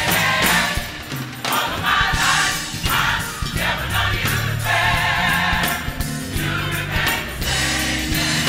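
A large gospel choir singing over musical accompaniment, with steady low bass notes under the voices.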